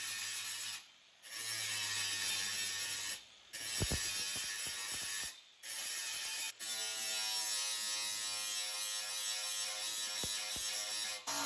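Power grinder working metal, a loud rasping hiss with a motor whine, stopping and restarting in several abrupt cuts.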